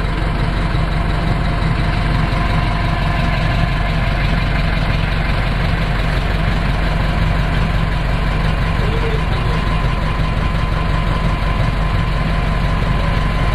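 A motorboat's engine running steadily, a low drone with no change in speed.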